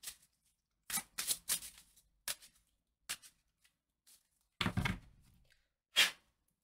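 A tarot deck being shuffled overhand by hand: short papery swishes of cards sliding between the hands, coming in separate bursts. A heavier thump comes a little before five seconds in, and a sharp card slap about a second later.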